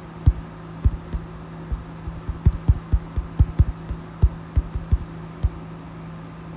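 Fingertips tapping a phone's touchscreen while typing, picked up through the phone as a quick, irregular run of soft low thumps over a steady low hum.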